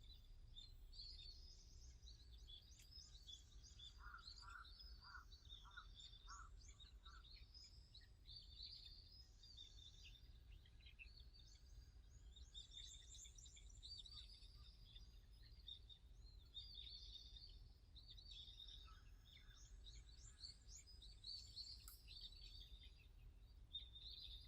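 Wild songbirds chirping and singing faintly, many quick high calls and trills overlapping, with one bird giving a short series of about six lower notes a few seconds in. A steady low rumble sits underneath.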